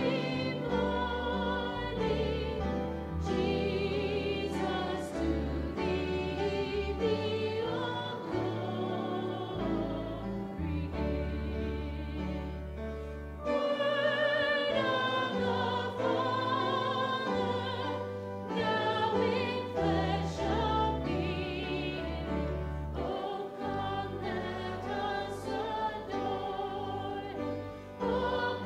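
Choir singing with vibrato over an instrumental accompaniment of sustained low notes.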